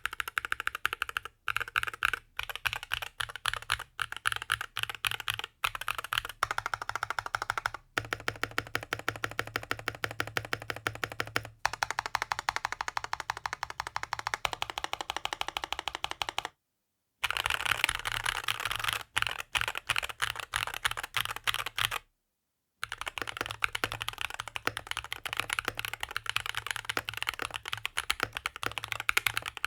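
Fast, continuous typing on a Rexus Daxa M61/M64 mechanical keyboard, a dense run of key clicks and bottom-outs. It is broken twice by a sudden moment of dead silence.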